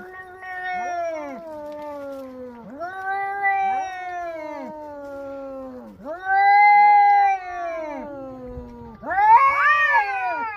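Cats yowling at each other in a fight standoff: long, drawn-out, wavering growl-howls that mostly fall in pitch, one after another and sometimes overlapping. A louder, higher yowl rises and falls near the end.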